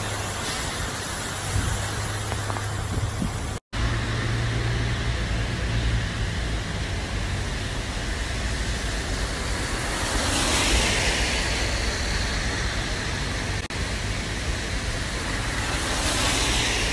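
Rain hissing steadily over a low hum of traffic, with louder swells about ten and sixteen seconds in. The sound drops out briefly near four seconds in.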